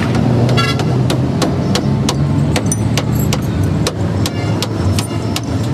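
Steady low engine drone with sharp metallic clicks and taps, two or three a second at uneven spacing, from hand tools working on a heavy truck's front leaf-spring and axle fittings.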